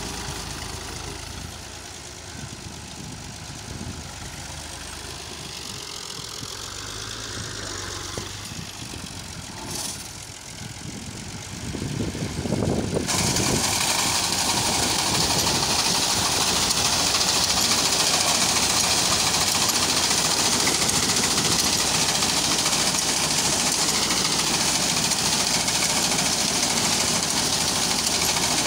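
Fiat tractor's diesel engine running as it pushes a front-mounted reaper through standing wheat, with the reaper's cutter bar clattering. About 13 seconds in, the sound jumps much louder and hissier and stays that way.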